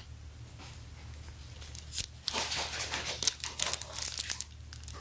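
Thin clear plastic wrapping crinkling and tearing as it is pulled off a pair of sunglasses: a few light clicks, then a dense run of crackles and snaps from about two seconds in until about four and a half seconds in.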